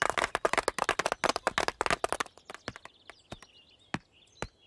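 Cartoon sheep flock clapping their hooves, a quick patter of hard clicky claps that is thick for about two seconds and then thins to a few stray claps. Faint bird chirps sound in the background from about halfway in.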